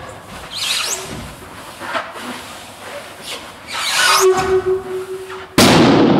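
Latex party balloons squeaking and rubbing as they are hugged and squeezed, with one squeak held for over a second, then a sudden loud bang about five and a half seconds in that stays loud and rings on in the hall.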